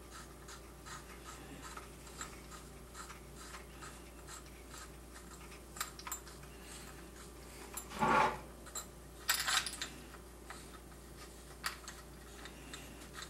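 Light metal clicking and scraping as the fore-end nut of a Remington Model 740 Woodsmaster rifle is turned by hand along its long threaded bolt. A louder scrape comes about eight seconds in and a short run of clicks just after nine seconds.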